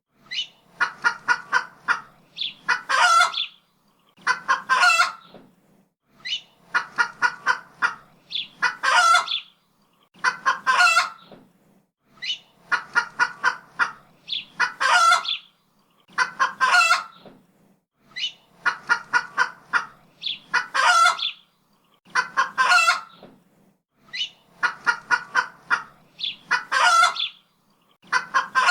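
Chicken clucking in a repeating phrase: a quick run of short clucks, then one louder, drawn-out squawk, coming round about every two seconds.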